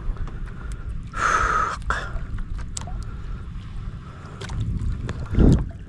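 Low, steady rumble of wind on the microphone aboard a small boat, with scattered light clicks. A short breathy rush comes about a second in, and a heavy low thump near the end is the loudest sound.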